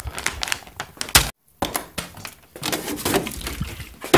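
Clicks, knocks and rattles of things being handled on a kitchen counter, with a plastic milk bottle picked up near the end, mixed with the handheld camera's own handling noise. The sound cuts out briefly about a second in.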